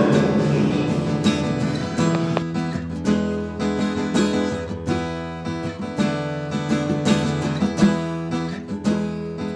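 Background music: an acoustic guitar playing a steady run of plucked and strummed chords.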